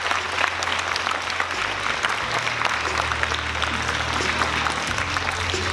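An audience of school students clapping steadily, a dense, even applause.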